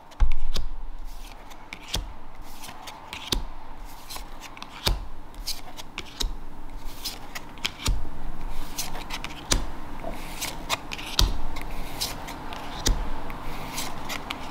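Stiff Digimon Card Game trading cards being flipped one by one through a booster pack, sliding and snapping against each other in irregular sharp clicks. There is a heavier bump just after the start.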